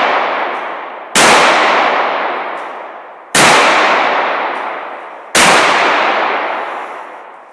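Three revolver shots about two seconds apart, each followed by a long echo that fades away over about two seconds in a large, empty concrete hall. At the start, the echo of a shot fired just before is still dying away.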